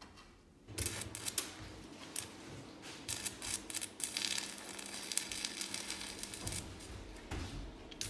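Electric arc welding crackling and sizzling, starting about a second in, as a weld is run to seal the crushed end of a scooter's exhaust pipe.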